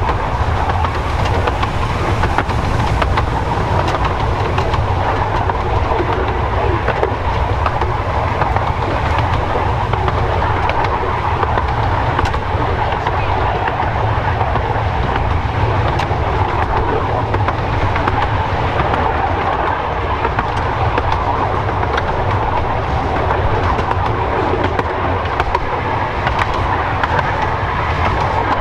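10.25-inch gauge miniature railway train running, heard from on board: a steady rumble and clatter of the carriage wheels on the track, with scattered clicks.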